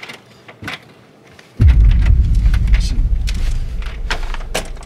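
Scattered sharp clicks and taps at a front door's lock as it is worked. A loud low rumble sets in suddenly about a second and a half in and fades near the end.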